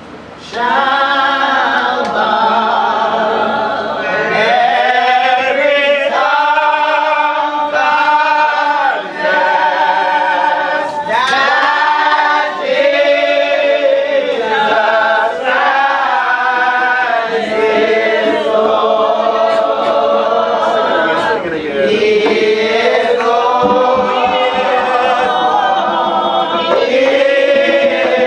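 Church congregation singing together unaccompanied, many voices in long held notes, rising to full volume about half a second in.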